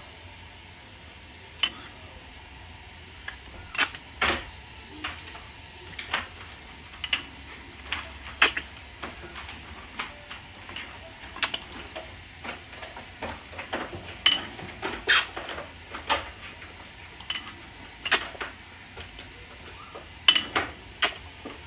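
A metal spoon knocking and scraping against a roasting pan of chicken and vegetables: irregular sharp clinks, a few every couple of seconds, over a low steady hum.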